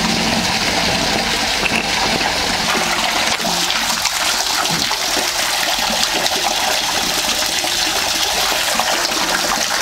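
Cow-shed wash water carrying dung and urine pouring steadily from a drain channel and splashing into a collection tank below.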